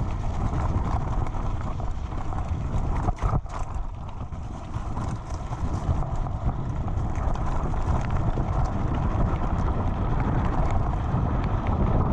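Mountain bike rolling downhill over loose wet gravel: tyres crunching on stones and the bike rattling with many small knocks, over a steady low rumble.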